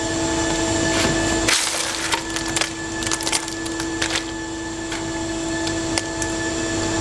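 Macadamia nut optical colour sorter running with a steady hum of several notes. Over the hum come irregular sharp clicks and clatter from the sorting of nuts and shells, with a denser rush of clatter about a second and a half in.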